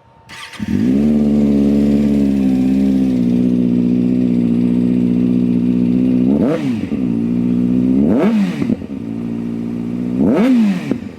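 Kawasaki ZX-6R's inline-four engine, fitted with a new aftermarket exhaust, starting up and settling into a steady idle, then revved with three short throttle blips, each rising and falling in pitch. It sounds mean.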